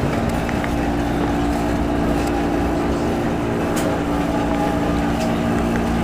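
Boiler-room equipment running: a steady low hum with several held tones over an even rushing noise.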